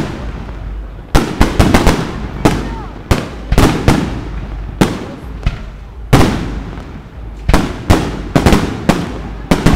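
Fireworks display: aerial shells bursting overhead in a rapid, irregular series of sharp bangs, some in quick clusters, each trailing off in a fading rumble.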